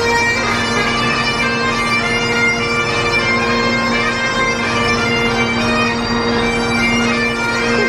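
Bagpipes playing a tune: a steady drone underneath a shifting chanter melody.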